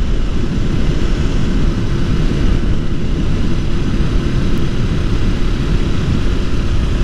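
Motorcycle engine running steadily at cruising speed, a constant drone mixed with rushing wind and road noise.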